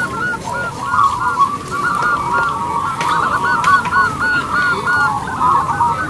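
Many caged zebra doves (perkutut) cooing at once, their short rapid coos overlapping into a continuous chorus.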